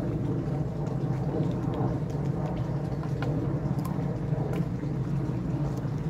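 Steady low mechanical hum and rumble, with a few faint short clicks over it.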